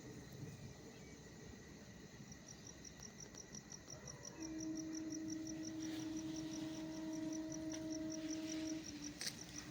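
A cricket chirping steadily at high pitch, about five chirps a second, starting about two seconds in. A steady low hum joins it about halfway through and stops shortly before the end.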